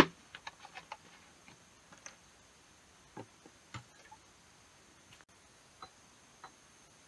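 Light, scattered clicks and taps of a plastic bottle and a small ceramic bowl being handled, with a cluster of quick ticks in the first second and single knocks every second or so after. One sharp click at the very start is the loudest sound.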